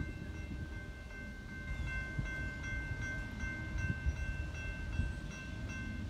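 Railroad grade-crossing warning bell ringing in a steady, even rhythm as the crossing gates lower, over a low rumble.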